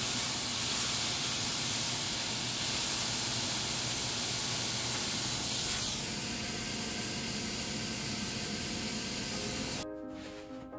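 Food sizzling as it fries, a steady hiss: pork and greens in a frying pan, then, after a change about six seconds in, salted cutlassfish grilling in a stove's fish grill. Music comes in near the end.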